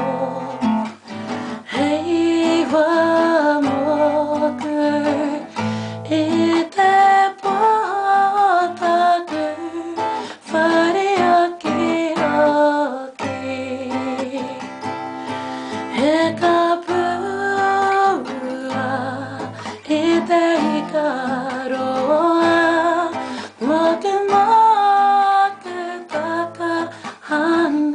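Steel-string acoustic guitar strummed in chords, accompanying a voice singing a Māori waiata in a slow melody with a wavering, vibrato-like pitch and short breaks between phrases.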